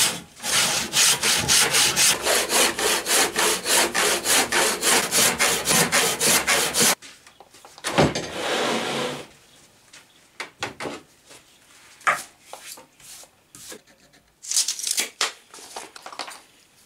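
Hand saw cutting through an oak beam in even back-and-forth strokes, about three a second, stopping suddenly after about seven seconds. Then a knock and a short scrape of wood sliding on wood, followed by scattered lighter scrapes and taps.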